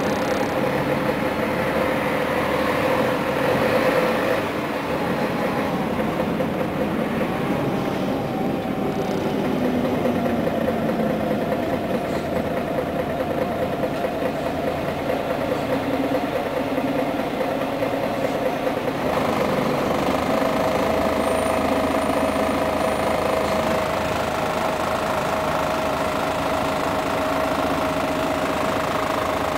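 A 1999 Scania CN113CLL city bus under way, heard from inside the passenger cabin: the 11-litre diesel engine running steadily with vibration and body rattle, its note shifting in pitch several times as the bus changes speed.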